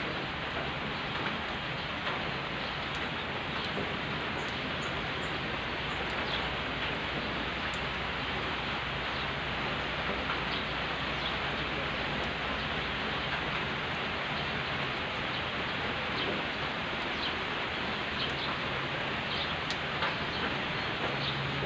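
Steady rain falling on a dirt road with puddles and on the surrounding vegetation: an even hiss with scattered drop ticks.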